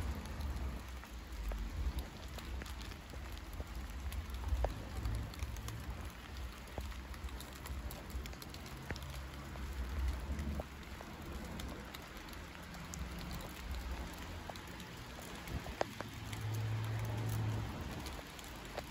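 Rain falling steadily, with scattered ticks of drops striking nearby surfaces over a low rumble.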